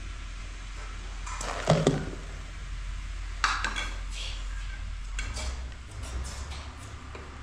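A glass lid set onto a metal cooking pot with a clatter about two seconds in, followed by a sharp clink and a few lighter metal clicks over a steady low hum.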